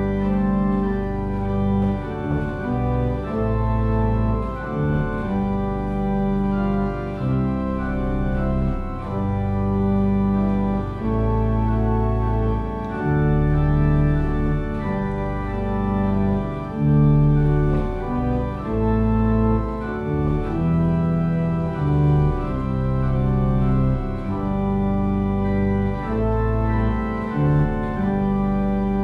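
Organ playing a hymn tune in sustained chords that change every second or so, with no singing.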